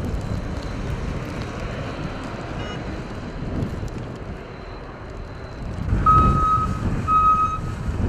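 Blizzard wind gusting hard against the microphone, a low rumbling rush that swells in gusts. Near the end two steady electronic beeps sound about a second apart.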